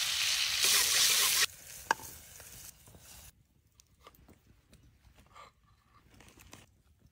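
Meatballs sizzling in a frying pan over a wood fire; the sizzle cuts off suddenly about a second and a half in. After a sharp click, faint taps follow of a small knife slicing cherry tomatoes on a wooden cutting board.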